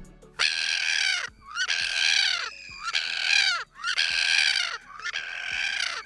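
Ivory gull calling: five drawn-out calls in a row, each about a second long and falling in pitch at the end.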